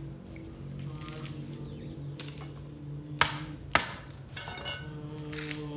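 Light rustling and handling of fresh red chili peppers, with two sharp clicks about half a second apart a little over three seconds in, over a steady low hum.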